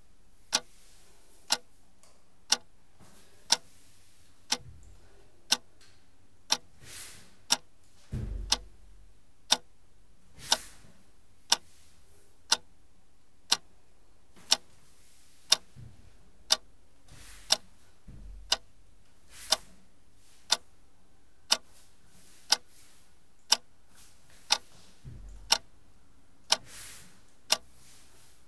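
A clock ticking steadily, one sharp tick a second, with a few soft whooshes and low thumps between the ticks.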